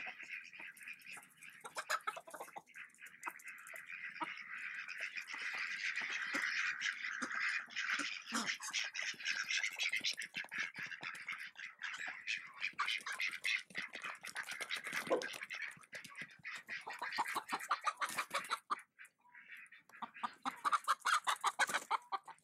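Domestic chickens clucking and squawking as a herding dog moves them around the pen, the calls coming in quick irregular runs throughout.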